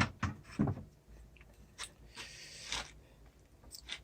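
Wooden dresser drawer being handled and pushed in: a few quick knocks, then a short scraping slide as it rubs on its rail, the drawer catching on the bottom as it goes in.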